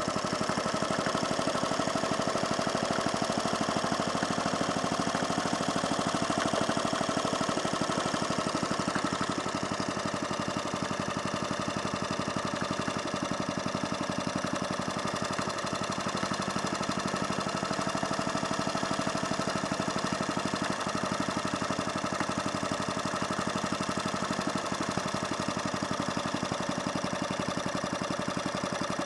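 Hayter Hayterette rough-cut mower's petrol engine running steadily, its pitch wavering slightly.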